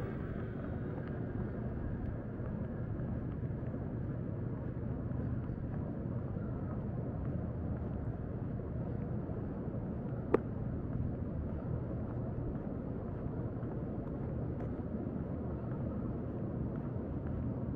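Steady low outdoor background rumble, with one sharp click about ten seconds in.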